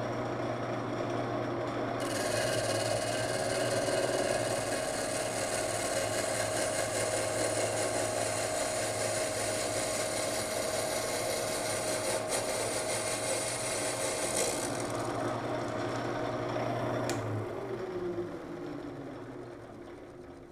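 Shop-built wood lathe spinning a laminated banjo rim blank while a cutting tool shaves down its outer skin. A steady motor hum runs under a hissing cut that starts about two seconds in and eases off about two-thirds of the way through. Near the end the hum stops and the sound fades away.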